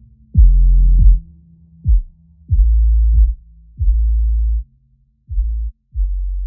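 Background electronic music: deep bass notes struck about once a second, each held briefly, growing quieter toward the end.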